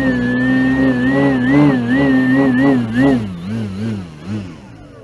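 Brushless electric motor and large propeller of an RC model aircraft built as a flying lawnmower (6S Power 50 setup) running hard near full throttle, a steady whine whose pitch wavers up and down. From about three seconds in it throttles back, the pitch gliding down as the motor winds down near the end. At full power the owner notes a lot of vibration he cannot trace.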